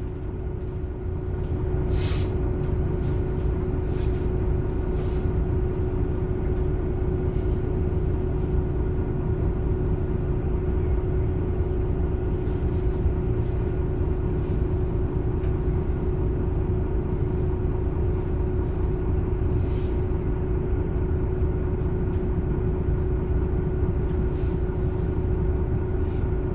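MAN Lion's City A21 city bus with a ZF EcoLife six-speed automatic, towing a trailer, pulling away and running at steady speed: an even engine and drivetrain rumble with a constant whine. The sound grows in the first second or two and then holds steady, with a few faint clicks and rattles.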